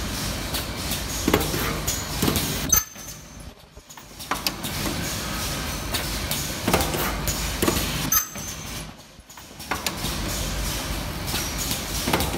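Automatic ribbon ultrasonic welding and cutting machine running: a steady hiss and mechanical clatter with sharp clicks, dropping off briefly twice.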